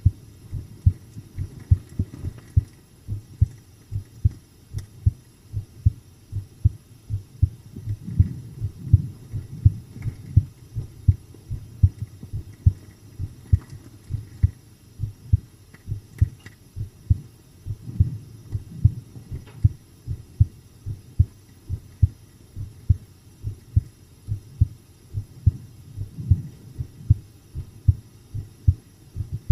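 A person's own resting heartbeat heard up close: a steady, calm rhythm of paired lub-dub thumps.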